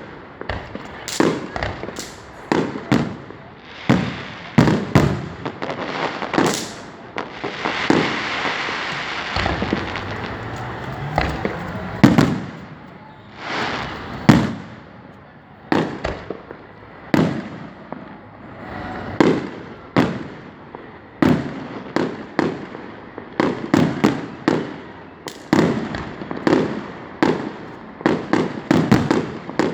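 Fireworks display: a steady run of bangs and booms, some close together in quick clusters, with several seconds of continuous hiss a little after the first quarter.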